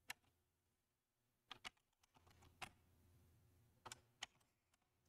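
Faint computer keyboard keystrokes: a handful of single key clicks spaced irregularly, a second or so apart, as a short command is typed and entered.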